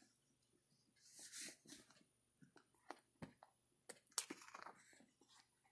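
Faint handling of a card folder and its printed pages: a soft sliding rustle about a second in, then a few light taps and clicks, the sharpest about four seconds in.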